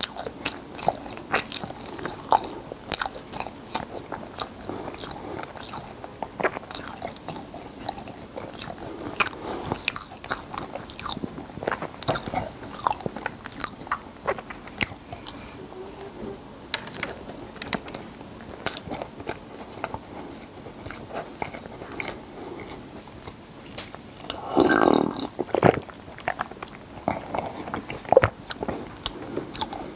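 Close-miked chewing and crunching of ggulppang, Korean fried honey bread balls coated in sesame seeds and filled with sweet red-bean paste: many short, crisp bites and chews. One louder, longer sound comes near the end.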